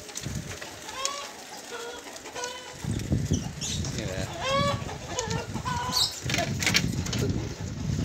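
Chickens clucking in short, repeated calls. About three seconds in, the low rumble and rattle of a bicycle rolling over a rough concrete path joins them.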